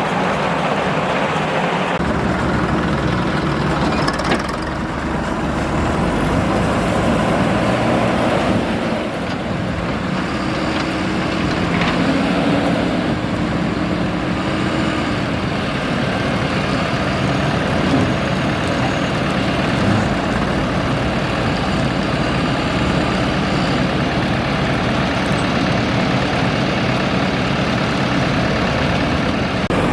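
Heavy diesel machinery running steadily, the engine pitch rising and falling now and then as it works under load, from a backhoe loader and tractors loading sand.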